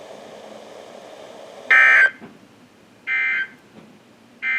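Three short bursts of Specific Area Message Encoding (SAME) digital data tones from a NOAA Weather Radio broadcast, each well under half a second and about a second and a half apart, over faint radio hiss. This is the Emergency Alert System end-of-message code that closes the warning.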